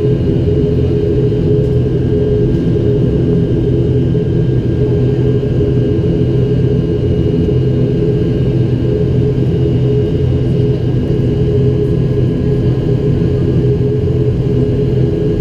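An ATR 72-500's Pratt & Whitney PW127 turboprop engines and propellers running on the ground, a steady low drone with a faint even whine above it, heard from inside the cabin.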